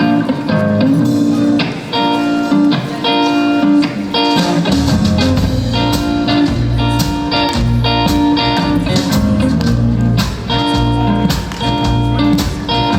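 A live band's instrumental intro, led by guitar chords over percussion; a low bass line comes in about five seconds in.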